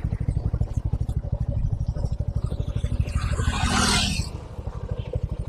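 Suzuki V-Strom SX 250's single-cylinder engine idling with an even, steady beat. There is a short hiss about three seconds in.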